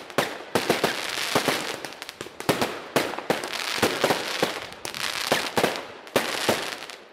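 Weco Bazooka fanned firework battery firing: a dense, irregular run of sharp bangs and crackles, several a second, over a continuous hissing crackle.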